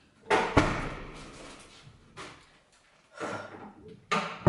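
Apartment front door opening with a sharp clack about a quarter-second in, followed by rustling and movement, then the door shutting with a thud near the end.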